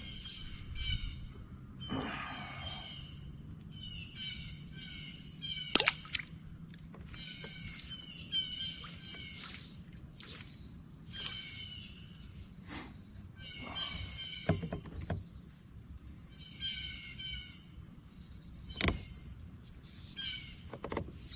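Wild birds calling and singing in repeated short chirping phrases, with a few sharp knocks and clicks.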